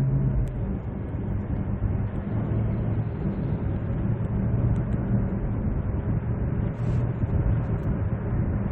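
Inside the cabin of a 2008 SsangYong Chairman 5.0-litre sedan cruising on the highway: steady low engine hum mixed with road and tyre noise.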